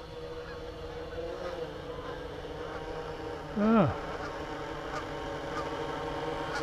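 Steady buzz of a small quadcopter's electric motors and propellers hovering overhead, with a flock of geese honking faintly from time to time.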